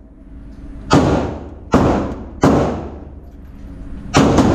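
Four gunshots in an indoor shooting range: three in quick succession less than a second apart, then one more after a pause of nearly two seconds, each followed by an echo that dies away in the range.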